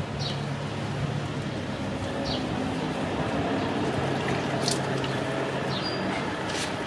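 Water splashing and trickling in a plastic basin as a baby monkey is washed by hand. A low steady hum runs underneath, with a few short high chirps and a couple of sharp splashes near the end.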